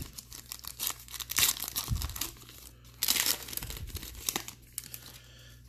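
A trading-card pack wrapper being torn open and crinkled by hand, a run of crackling rips.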